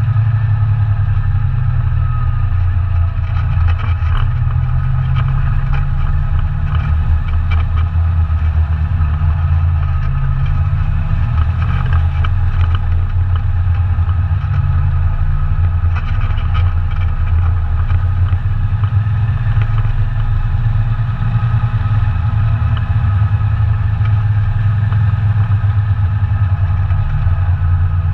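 ATV engine running steadily while being ridden, its pitch rising and falling slightly, with brief rattles and knocks now and then.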